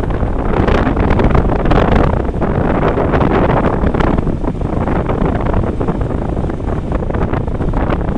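Loud wind buffeting the microphone held out of a moving train's carriage window, over the train's running noise.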